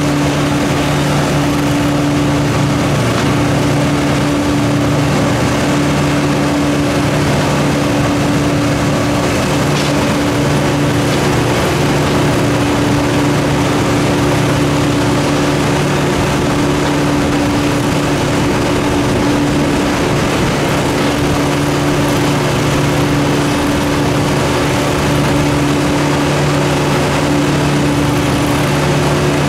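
An engine running steadily at one constant speed, with a steady low hum and no revving.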